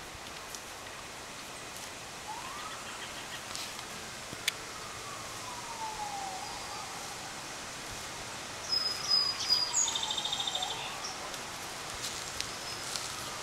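Faint siren wailing, its pitch rising quickly and then falling slowly, the cycle repeating about every four seconds. A bird chirps several times about two-thirds of the way through.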